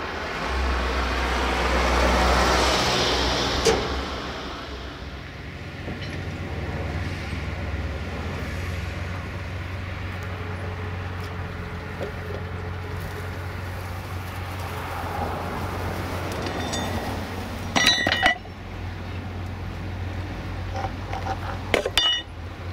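Rail vehicle's engine running steadily with a low hum, swelling louder about two seconds in, with a few sharp metallic clinks near the end.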